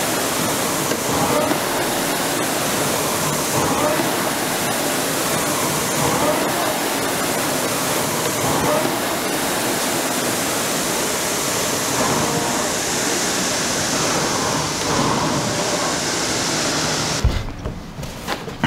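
Concept2 indoor rowing machine's air-resistance flywheel fan whooshing under hard rowing, swelling with each stroke about every two and a half seconds (around 25 strokes a minute). Near the end the whoosh cuts off with a low thump.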